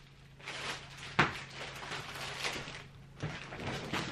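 Rustling and handling noises of a shipping package being picked up and handled, with a single sharp knock about a second in.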